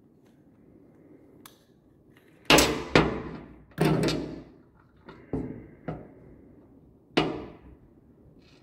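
About six sharp metallic knocks and clunks of a steel G-clamp and sockets being handled and bumped on a workbench while it is set up as a press for a dog-bone bearing, starting about two and a half seconds in.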